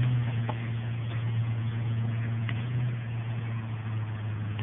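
Motor vehicle engine running steadily: a low, even hum, a little stronger in the first few seconds, with a couple of faint clicks.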